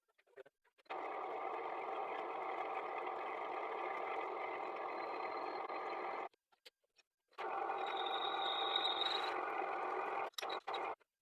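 Lathe running, a steady mechanical noise in two stretches that start and stop abruptly, with a thin high whine joining for about a second and a half near the end of the second stretch.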